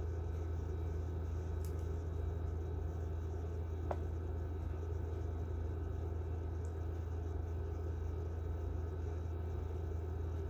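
Steady low hum of room background noise, with one faint brief tick about four seconds in.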